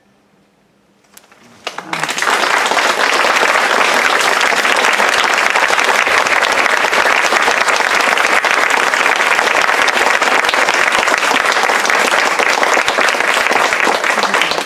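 Audience applauding: a few scattered claps about a second in, then loud, dense applause from about two seconds on.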